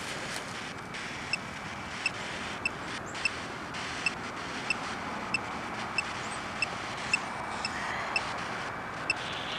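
Steady hum of traffic from a nearby highway, with short high beeps repeating about one and a half times a second.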